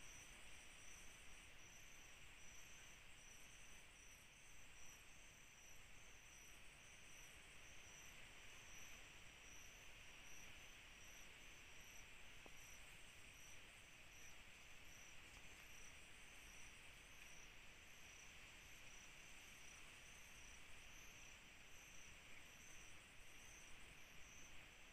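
Faint chorus of crickets and other night insects: steady high-pitched trilling with a regular pulsing chirp above it, over low hiss.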